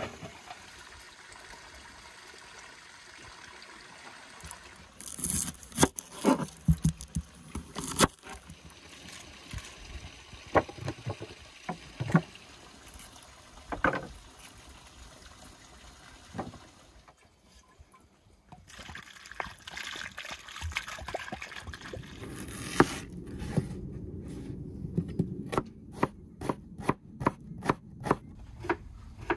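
Scattered knocks and handling of kitchen things, then in the last six seconds a chef's knife chopping onion on a wooden cutting board in a quick steady run of knocks, about three a second.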